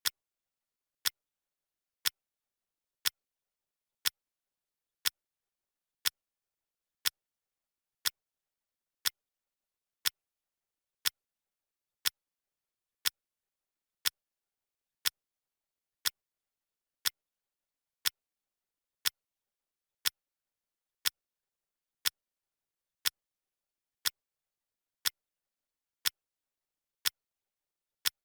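Clock ticking sound effect: one short, sharp tick each second, perfectly regular, with silence between ticks.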